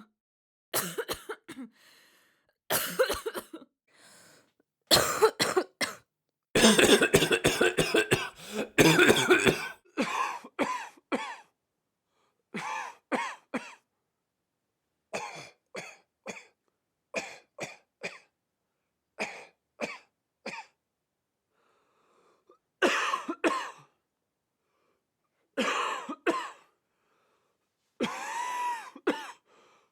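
Human coughing: short bouts of two or three coughs every couple of seconds, with silence between, and a longer, heavier coughing fit about seven to nine seconds in.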